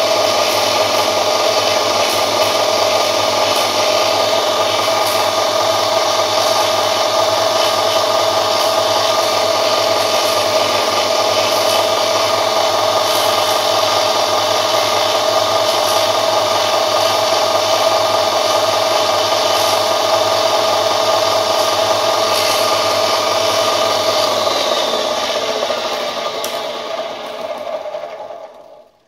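Bench polisher (a Workzone bench grinder with a buffing wheel) running steadily with a strong hum, used to polish the razor scales. In the last few seconds it is switched off and winds down to a stop.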